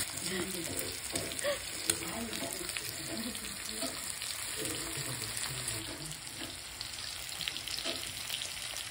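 Pork belly frying on a grill pan: a steady sizzle with scattered small pops.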